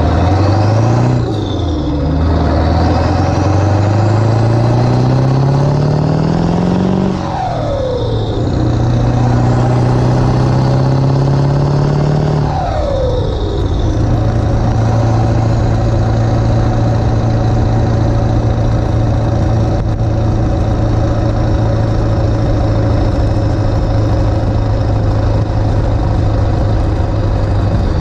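Ford 7.3 Powerstroke V8 turbo-diesel pulling hard as the truck accelerates through the gears. The engine climbs in pitch, drops at an upshift about 7 seconds in, climbs again, and drops at a second upshift about 12 seconds in. It then settles into a steady cruise.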